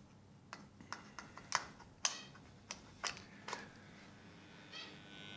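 A series of light plastic clicks and knocks as a mains plug is handled and pushed into a wall socket. Right at the end a steady electrical buzz starts up from the energised bucking-coil transformer.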